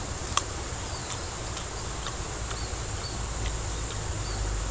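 Steady high-pitched insect buzzing with short chirps now and then, and one sharp crunch about half a second in as a young dragon fruit cactus stem is bitten into.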